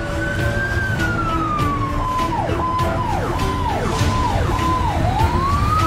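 Ambulance electronic siren: a wailing tone that slides down, then drops in several quick downward swoops and rises again near the end, over a low rumble.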